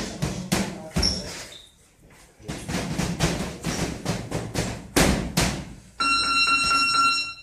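Boxing gloves landing in a sparring exchange: a run of sharp, irregular punch thuds with a few quieter gaps. Near the end a steady buzzer tone sounds for about a second and a half and cuts off.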